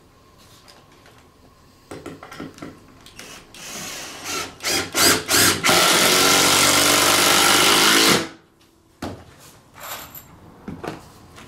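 Power drill driving a screw down through a timber floorboard: a few short trigger bursts, then a steady run of about two and a half seconds that cuts off suddenly. Light knocks of handling around it.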